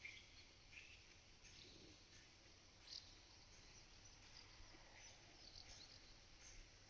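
Cows' tongues rasping against a mineral salt lick block: faint, irregular scratchy licks about once a second.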